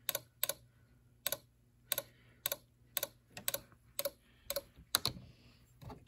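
Sharp plastic clicks from Snap Circuits parts being pressed and switched by hand, about a dozen at roughly half-second intervals.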